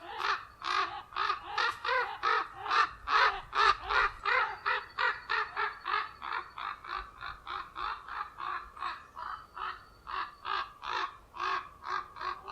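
Common ravens giving harsh, rapidly repeated alarm calls, about three a second without a break, as they defend their nest in the breeding season.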